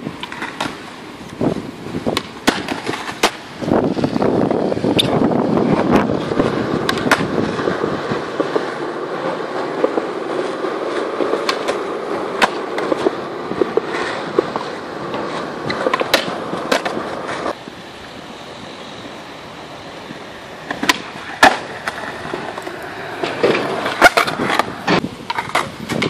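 Skateboard wheels rolling over smooth concrete with a steady rumble, broken again and again by sharp clacks of boards popping, hitting edges and landing. The rolling is loudest through the middle, eases off briefly, then more clacks come near the end.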